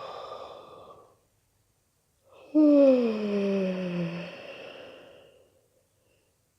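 A woman yawning: a deep breath drawn in through the open mouth ends about a second in, then a long sighing yawn out loud, its pitch falling as it trails off, starts about two and a half seconds in.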